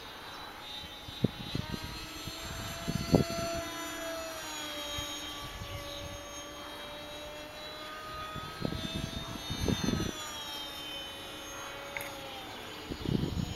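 Electric motor and propeller of a small RC Bf-109 warbird model, running on a 4S battery, whining high as it flies fast overhead; the pitch slides down and then rises again as the plane passes and turns. Low thumps on the microphone come and go.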